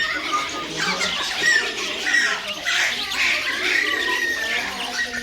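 A pet bird squawking and chattering continuously, with a longer held whistle in the second half.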